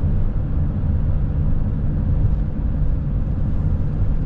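Steady low rumble of road and wind noise inside a van cruising at highway speed.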